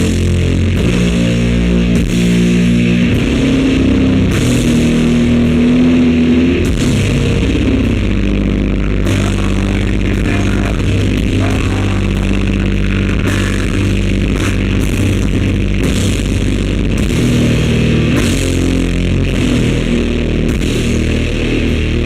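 Live heavy rock band playing loud: distorted guitar and bass holding long low notes over drums, with no break. The recording is muddy and overloaded, a very bad sound.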